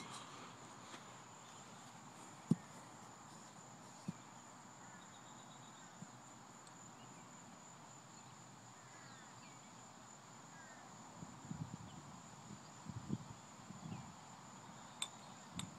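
A steady high-pitched insect drone with a few faint bird chirps, broken by occasional low thumps and, near the end, low rumbling bumps and a sharp click.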